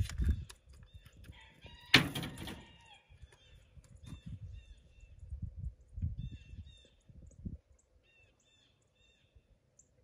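Birds calling: short high chirps repeated in small groups, with one loud, harsh call about two seconds in. Irregular low rumbling underneath that dies away about three-quarters of the way through.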